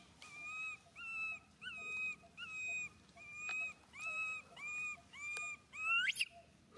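Newborn baby macaque crying: a steady string of short, thin, high-pitched cries, about two a second. The last cry, near the end, rises in pitch. A few faint clicks fall between the cries.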